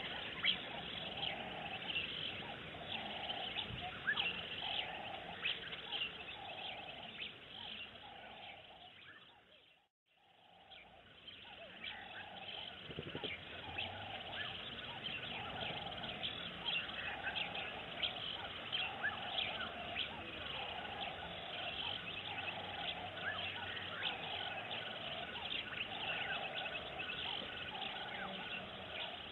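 Wild birds chirping and calling in the bush, with a low call repeating about once a second behind the chirps. The sound fades out and back in about ten seconds in.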